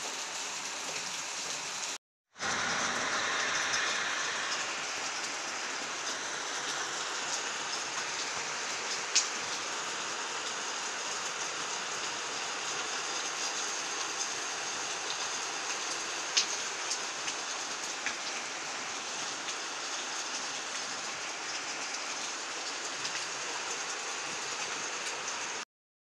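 Heavy rain falling steadily, a dense hiss with no pause except a brief dropout about two seconds in. Two sharp ticks stand out partway through, and the sound cuts off just before the end.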